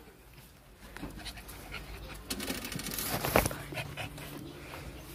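A dog panting close by, with a sharp knock about three and a half seconds in.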